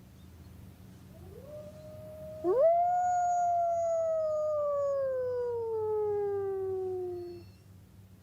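Tibetan wolf howling: a fainter howl rises and levels off about a second in, then a loud howl sweeps up sharply and slowly falls in pitch over about five seconds before stopping near the end.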